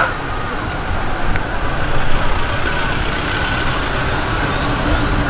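Busy street traffic at close range: the engines of cars and a pickup taxi running in slow traffic, with voices in the background.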